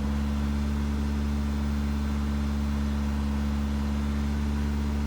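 A 2010 Nissan Sentra's 2.0-litre four-cylinder engine held steady at about 1,500 rpm. The pitch and level stay even. The engine is running lean from a large vacuum leak, code P0171.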